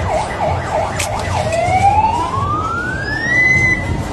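Emergency vehicle siren in fast up-and-down yelps, switching to one long rising wail that climbs high, levels off and cuts out near the end.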